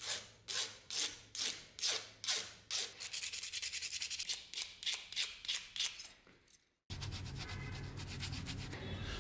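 Hand file scraping across metal in repeated strokes, about two a second, then quicker, shorter strokes about four a second from about three seconds in, fading away. After a sudden cut, a steady low hum and hiss.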